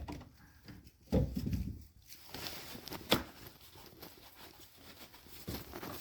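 Scraping and rustling of hands working the foam cover over a high-pressure fuel pump into its slot, with a dull thump about a second in and a sharp click about three seconds in.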